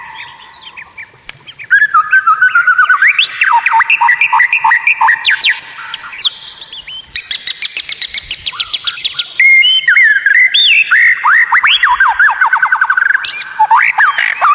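White-rumped shama (murai batu) singing a long, varied song of quick repeated notes, rising whistles and fast rattling trills, after a quieter first second or two.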